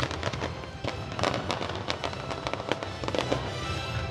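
Fireworks show with shells bursting and crackling in quick succession, many bangs close together over the show's music.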